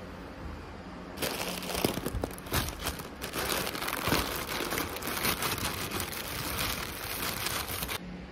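Thin plastic bag crinkling and rustling as it is handled and opened, with many small crackles. It starts about a second in and stops abruptly near the end.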